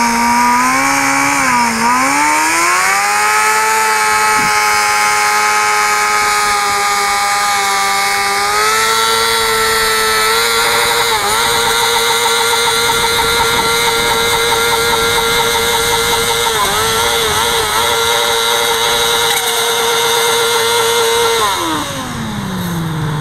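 Motorcycle engine held at high revs in a standing burnout, the bike stood upright on its rear wheel with the tire spinning against the pavement. The revs climb in the first few seconds, hold steady with a couple of brief dips, then fall away toward idle near the end.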